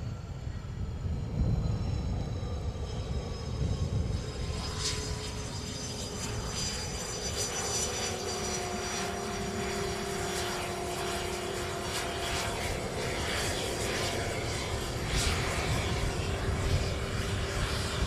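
Cessna 525 CitationJet's twin Williams FJ44 turbofans whining as the small business jet comes in to land. Several whine tones glide slowly down in pitch, over a rushing jet noise that swells from about four seconds in.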